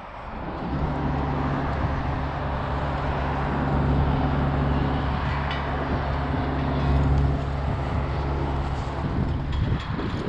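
An engine running steadily at one speed, a low hum that comes in about half a second in and drops away near the end.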